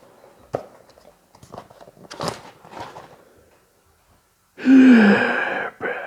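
A few light clicks and knocks, then a loud, breathy vocal sound about a second long that falls in pitch, followed by a shorter breath near the end.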